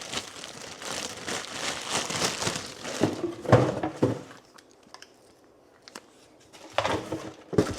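Packaging crinkling and rustling with small clicks and knocks as parts are taken out of a box. It goes quieter after about four seconds, then rustles briefly again near the end.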